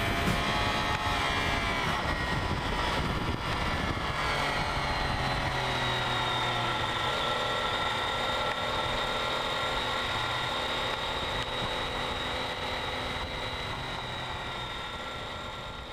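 Triumph Street Triple's three-cylinder engine running, its pitch falling over the first few seconds and then holding steady, fading out near the end.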